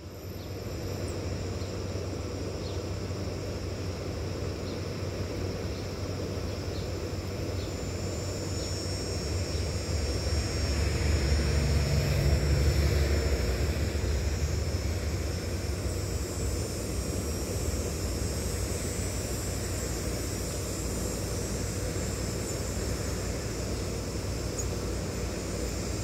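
Steady low outdoor rumble that swells to its loudest about twelve seconds in and then eases back.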